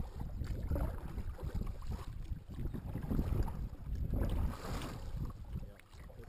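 Double-bladed kayak paddle strokes dipping and splashing in the water, a few strokes with the clearest about four and a half seconds in, over a steady rumble of wind on the microphone.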